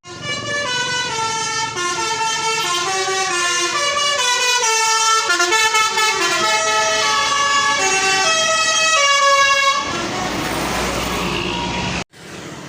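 A tour bus's telolet horn playing a quick melody of short stepped notes for about ten seconds. A noisy rush of sound follows and stops abruptly near the end.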